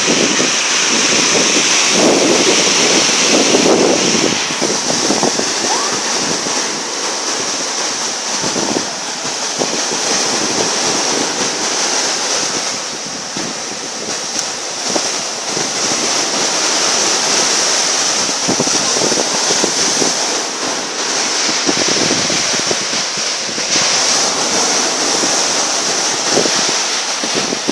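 Sea waves washing, with wind gusting on the microphone.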